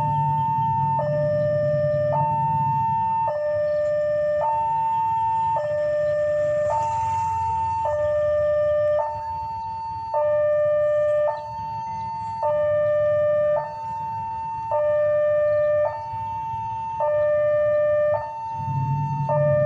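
Two-tone warning alarm sounding steadily, alternating high and low pitch with each tone held about a second. A low rumble runs under it for the first few seconds and comes back near the end.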